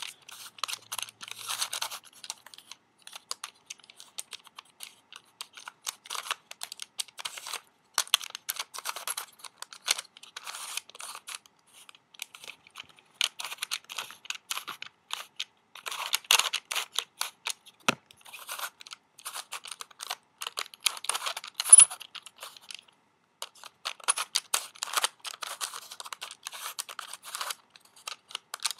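Plastic pieces of a Turnstile twisty puzzle clicking and rattling as its discs are turned by hand, in bursts of quick turns with short pauses between them.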